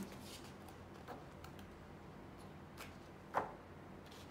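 A few faint clicks and light taps from board-game components being handled and set down, with one sharper tap about three and a half seconds in.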